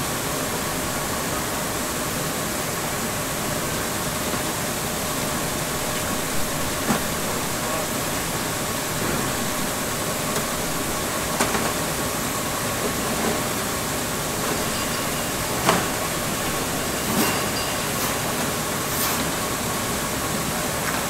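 Steady machine running noise with a constant hum, broken by a few faint clicks or knocks.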